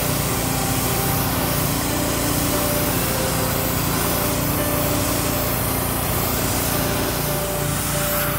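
Pressure washer running steadily, its small engine humming under the hiss of the wand's spray blasting grime off a boat's deck.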